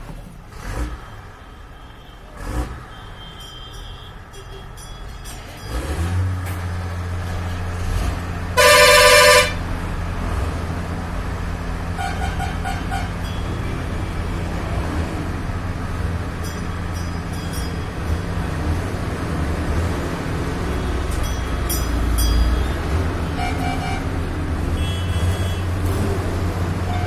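A car engine starts about six seconds in and settles into a steady idle. A loud car horn sounds once for under a second a few seconds later. Short electronic beeps come twice over the idle.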